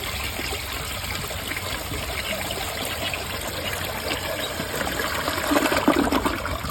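Briggs Altima toilet after a flush: water running and trickling steadily as the bowl and tank refill.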